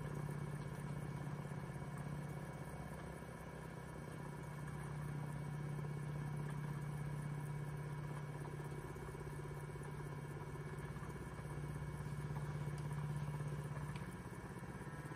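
Two electric spinning wheels running together: the Electric Eel Wheel 6 with an LWS level-winding flyer at about 1000 rpm, and an EEW Nano at full speed. Their motors and spinning flyers make a steady low hum with a thin higher whine, swelling and easing slightly in loudness.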